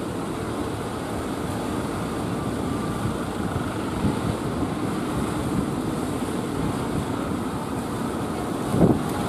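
Steady drone of wooden fishing boats' engines mixed with the wash of surf. A louder rush of wind on the microphone comes in near the end.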